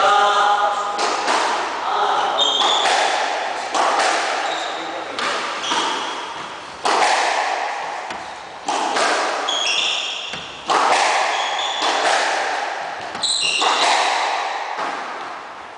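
Squash rally: the ball cracking off rackets and the court walls about once a second, each hit ringing in the enclosed court, with sneakers squeaking in short high chirps on the wooden floor.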